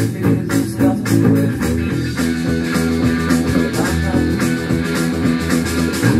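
Rock music: a band recording with electric guitar and drums, with an electric bass guitar played along to it. The low bass notes shift lower about a second and a half in.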